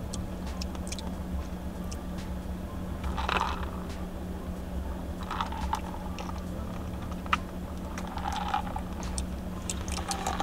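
A person sipping and swallowing iced coffee from a plastic cup in several short gulps, with small clicks of the lid and cup. Plastic handling near the end. Under it all, a steady low hum.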